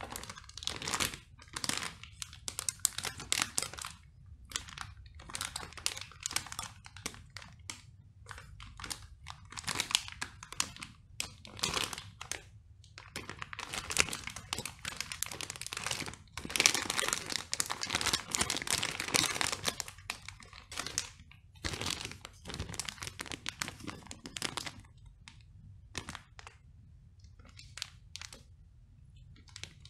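Clear plastic bags around plastic model-kit sprues and a car body shell crinkling as hands lift and turn them. The crinkling comes in irregular bursts, busiest in the middle and sparser near the end.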